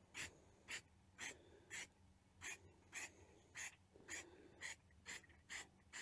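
CRC silicone aerosol spray hissing out in short, quick squirts, about two a second, as the lubricant is laid onto rubber door seals.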